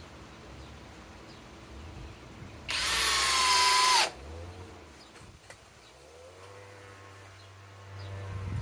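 Flex compact cordless hammer drill-driver whining in a short loud burst about three seconds in, then running more quietly and building again near the end, driving long structural screws into wood.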